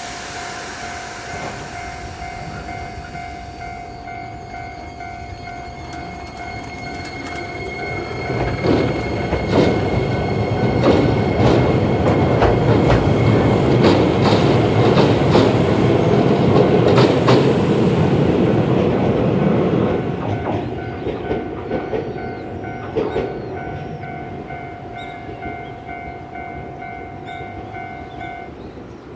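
Level crossing alarm ringing in a steady repeating tone while an Iyotetsu 3000 series electric train pulls away across a steel truss bridge. There is a brief hiss at the start, then wheels clatter over the rail joints with a rising motor whine. The train noise is loudest around the middle and fades, and the crossing alarm stops near the end.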